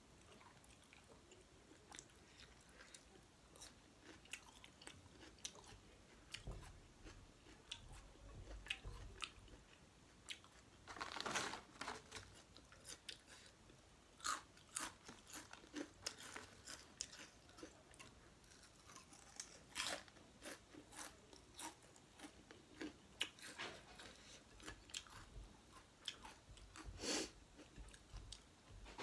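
Close-up mouth sounds of eating rice and pork curry by hand: chewing and wet smacking, with many small clicks and a few louder bursts about 11, 14, 20 and 27 seconds in.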